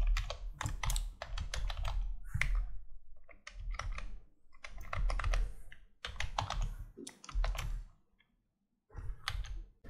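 Typing on a computer keyboard: quick runs of keystrokes in short bursts, with a pause of about a second near the end.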